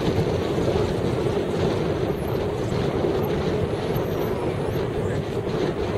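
Heavy wind buffeting the microphone: a steady, loud low rumble with no letup.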